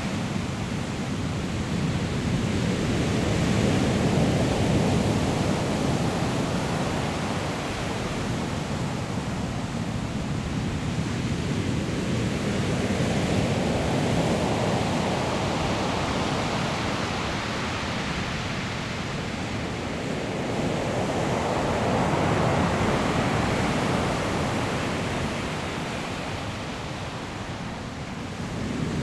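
Ocean surf breaking on a pebble shore: a continuous rushing noise that swells and ebbs as each wave comes in, about every nine seconds.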